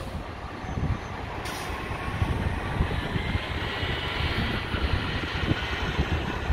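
Dassault Falcon 2000 business jet's twin turbofan engines spooling up for takeoff: a whine that comes in about a second and a half in and grows louder, over a rough low rumble.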